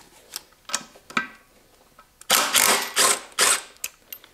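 Cordless impact driver hammering in three short trigger pulses on a motorcycle's front axle nut, after a few light metal clicks of tools being handled.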